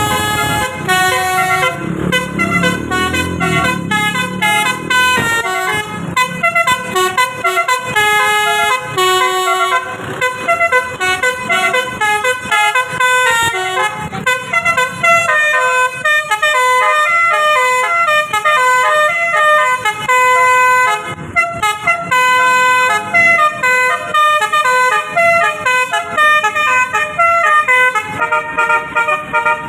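Bus's basuri telolet melody horn playing a fast tune of short stepped notes, several a second, with a brief break about two-thirds through and a held chord near the end.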